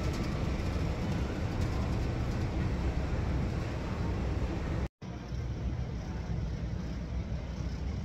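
Steady low rumble of a vehicle on the move with traffic noise around it, cut off briefly about five seconds in.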